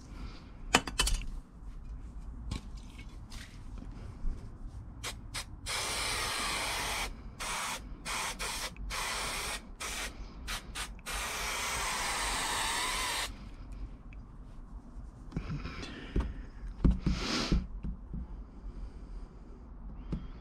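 Aerosol can of spray adhesive hissing in bursts: one of about a second, several short ones, then a steady spray of about two seconds. A few knocks and rustles from handling the panel follow near the end.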